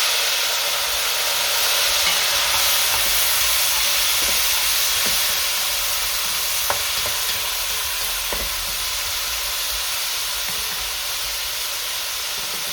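Button mushrooms and spring onions frying in very hot olive oil in a big pot: a steady sizzle that eases slowly, with a few faint ticks.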